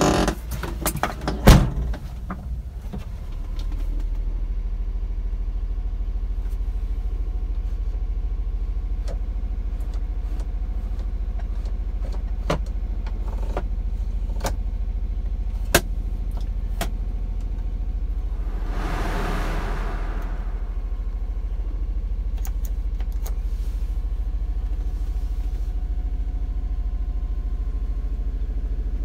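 Honda Acty truck's small three-cylinder engine idling steadily, heard from inside the cab. A heavy knock about a second and a half in, and scattered clicks from controls being handled, sound over it, with a brief rush of noise a little past the middle.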